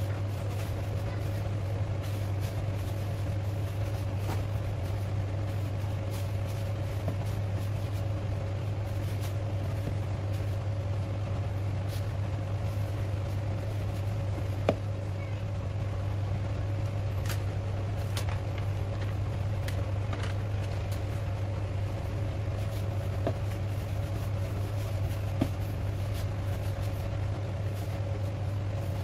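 A steady low mechanical hum at an even level, with a few faint clicks.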